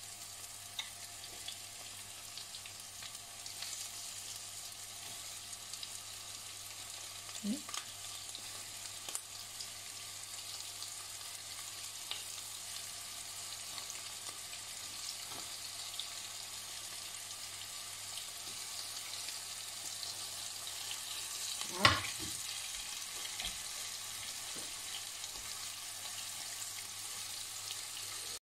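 Cornstarch-coated pork pieces sizzling steadily as they fry in hot vegetable oil in a frying pan, with small scattered clicks and one sharper knock about three-quarters of the way through.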